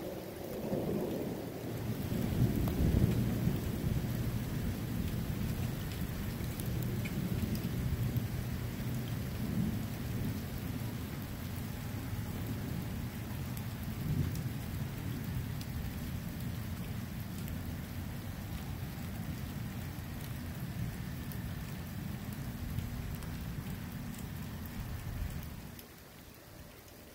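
Long rolling thunder rumble, loudest a few seconds in and stopping about 25 seconds in, with rain falling throughout.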